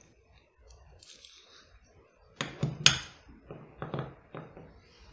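Sharp metallic clicks and clinks as the brass plug of a Mul-T-Lock cylinder, key inserted, is slid out of its housing onto a follower. A quick cluster of clicks comes about two and a half seconds in, the loudest near three seconds, then a few softer ones.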